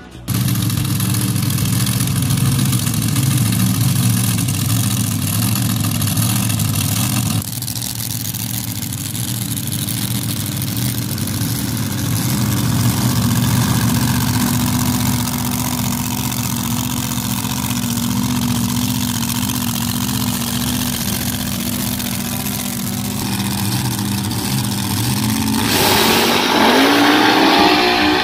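Sand drag racing engines running at a steady idle with a low rumble, then near the end a loud full-throttle launch with the engine pitch rising.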